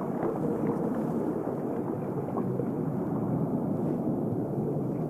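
Steady low rushing water noise, like underwater ambience, with no clear rhythm or tune.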